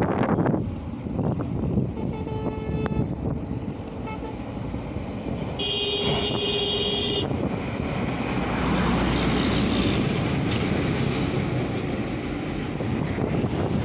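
Steady road-traffic rumble with vehicle horns: a short toot about two seconds in, then a louder steady horn blast of about a second and a half around six seconds in.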